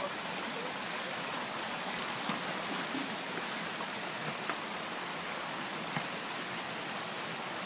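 Steady rush of a small stream running close by, with a few faint knocks from a spade digging in the mud.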